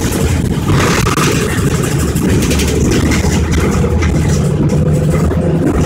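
City transit bus driving, heard from inside the passenger cabin: a steady, loud engine drone mixed with road noise.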